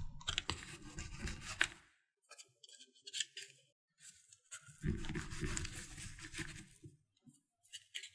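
A plastic scone cutter pressed down through crumbly scone dough on a marble worktop, dough scraping and crumbling in two bouts of about two seconds each, with faint crackles between.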